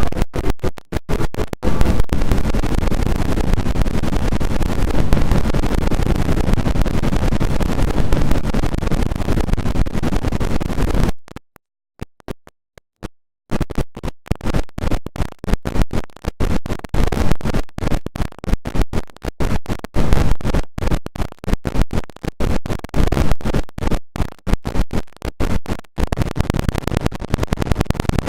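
An Android phone alarm tone, digitally edited into rapid stutters and scratch-like chops, cut off for about two seconds near the middle before the chopped sound resumes.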